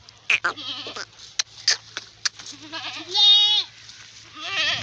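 Goats bleating: a wavering bleat about half a second in, a louder, longer bleat around three seconds in, and another starting near the end. A few short sharp clicks fall between the calls.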